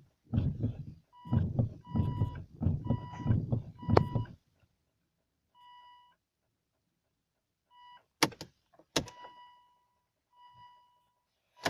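Volvo V50 2.0D in an electrical fault that keeps it from starting: for the first four seconds, bursts of buzzing clatter come with repeated electronic warning beeps. Then single beeps sound every second or two, and two sharp clicks come about eight and nine seconds in.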